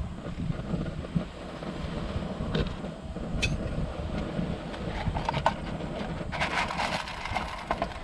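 Sea wind buffeting the microphone as a steady low rumble, with a few clicks, then a spell of clattering and crinkling from objects being handled in the second half.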